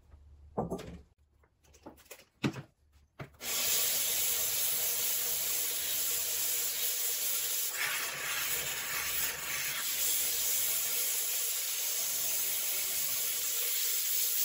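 A few knocks as a fired porcelain pot is handled, then, from about three seconds in, its unglazed foot rubbed steadily against a wet fine-grit diamond sanding disc: an even, continuous scraping.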